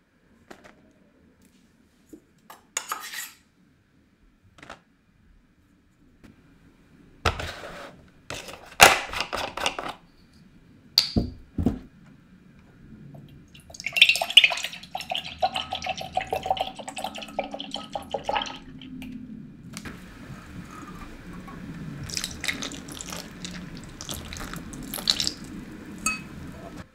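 Kitchen prep sounds of glassware: a few short taps and clicks and a single ringing glass clink, then soy milk pouring in a thin stream into a glass tumbler, splashing for several seconds. After that comes softer pouring and splashing of liquid into a glass mixing bowl.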